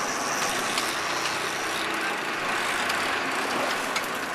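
Fishing boat's engine running steadily, mixed with a wash of wind and water noise.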